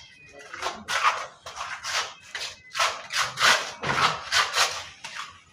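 Steel mason's trowel scraping and spreading cement mortar on a door jamb, in quick repeated strokes of about three a second.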